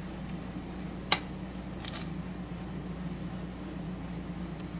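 Steady low room hum, with one sharp click about a second in and a faint brief rustle shortly after, as pieces of fried salmon are set down on a serving platter.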